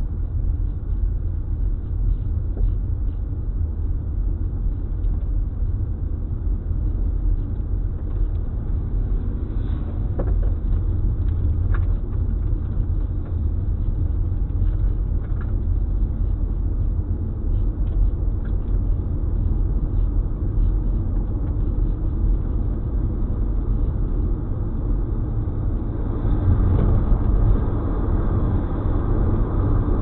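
Steady low road and engine rumble of a car towing a trailer at highway speed, heard from inside the car. It grows louder and brighter near the end.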